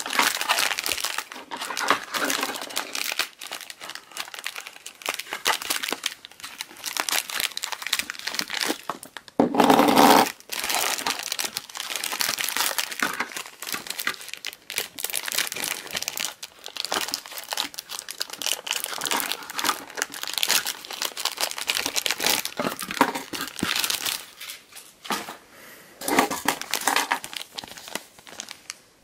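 Clear plastic packaging bags crinkling and rustling as Beyblade parts are unwrapped by hand, with a louder, deeper rustle close to the microphone about ten seconds in.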